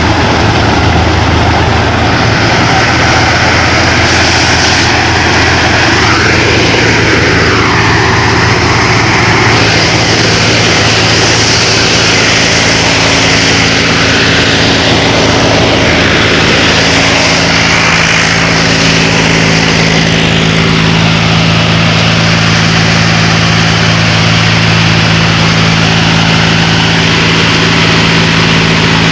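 Mahindra 265 DI tractor's three-cylinder diesel engine running steadily under load while it drives a wheat thresher, mixed with the thresher's dense noise as straw is fed through. The engine's steady note comes through more strongly after about ten seconds.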